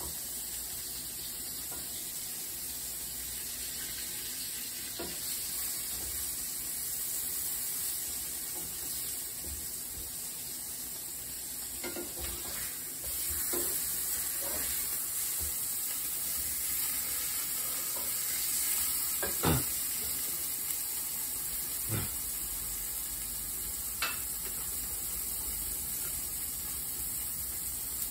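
Burger patties sizzling in a frying pan, a steady high hiss, with a few scattered clinks and scrapes of a metal spatula against the pan; the sharpest knock comes about two-thirds of the way through.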